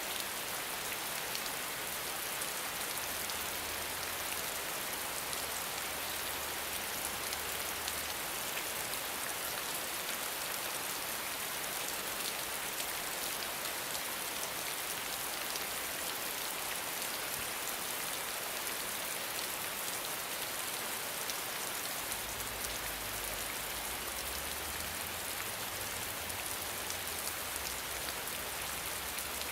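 Steady rain falling, a dense even hiss with fine patter of drops on a surface.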